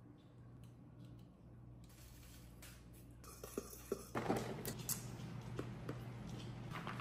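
Small clicks, taps and rustles of kitchen handling during food preparation, busiest around four to five seconds in.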